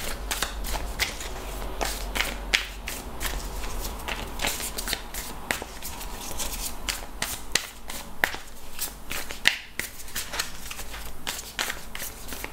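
A deck of tarot cards being shuffled by hand, the cards flicking against each other in a continuous run of short, irregular clicks.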